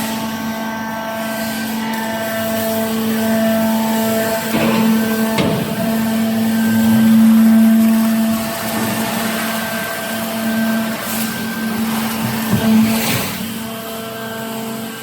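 Continuous metal baler running: a steady machine hum with higher whining tones that switch on and off. There are a few brief knocks or clatters about five seconds in and again near the end.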